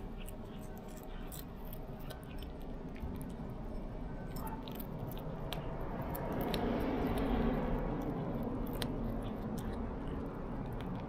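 Cat chewing and crunching dried sardines (niboshi), a scattered run of small sharp crunches and clicks. A low background rumble swells about six seconds in and then eases.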